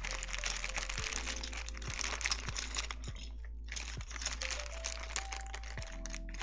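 Plastic bag crinkling and rustling as keycaps are handled and sorted, a steady crackle of small clicks, with soft background music underneath.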